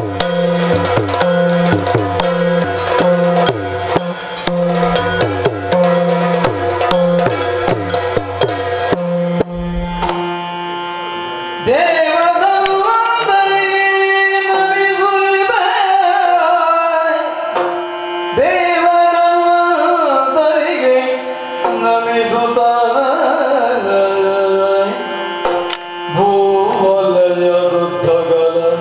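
Yakshagana accompaniment music: a steady drum rhythm for about the first nine seconds, then a male voice starts singing about twelve seconds in over a steady drone.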